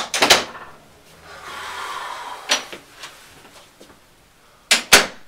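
Mirrored bathroom medicine cabinet door being handled: a cluster of clicks and knocks at the start, a short rubbing hiss about two seconds in, a tap, then two sharp clacks near the end as the door is shut.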